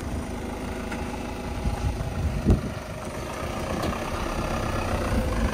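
Fiat Ducato–based camper van's diesel engine running at low speed as the van creeps forward and turns, with one low thump about halfway through.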